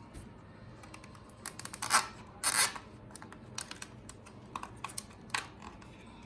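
Plastic zip ties being fed around the bike frame and pulled through their heads: scattered light plastic clicks and a couple of short ratcheting rasps.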